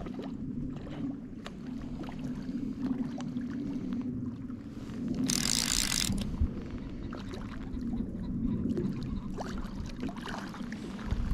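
Wind and lapping lake water with scattered small clicks from a fly reel while a hooked rainbow trout is played on a fly rod. A short rushing hiss comes about five seconds in.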